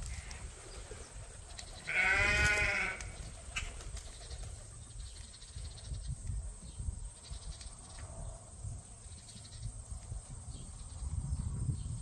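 A sheep bleats once, a wavering call lasting about a second, starting about two seconds in.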